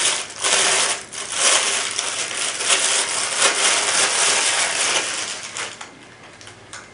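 Clear plastic bag crinkling and rustling as it is pulled off a handheld laser rangefinder, a dense crackle that dies away about six seconds in, followed by a few light clicks.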